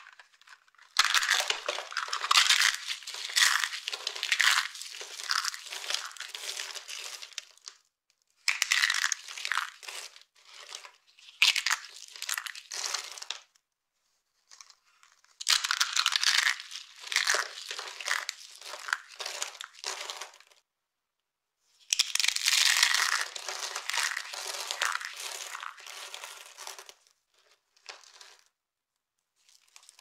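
Dry carved soap curls crushed and crumbled between the fingers: crisp crackling and crunching as the brittle strips snap into flakes. It comes in five bouts of a few seconds each, with short silent gaps between them.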